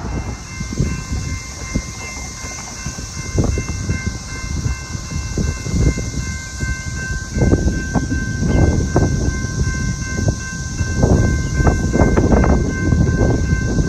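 Railroad grade-crossing bell ringing steadily with the crossing gates down. Under it, the low rumble and clatter of an approaching train grows louder from about seven seconds in.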